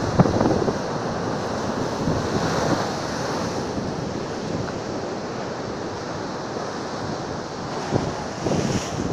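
Storm surf on a rough sea: waves breaking and foam rushing up over a tiled promenade in a steady wash. Wind buffets the microphone in a few gusts near the end.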